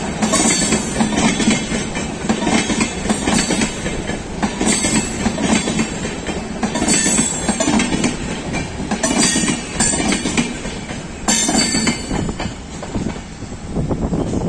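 Wheels of LHB passenger coaches passing on the track: a steady rumble with a sharp clatter every second or two as the wheelsets cross rail joints and points. The last coach goes by near the end.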